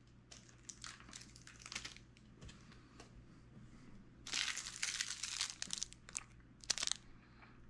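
Plastic wrapper of a chocolate-coated Greek yogurt bar crinkling as it is handled and unwrapped, in short crackly bursts, busiest from about four seconds in for a second and a half, with another brief burst near the end.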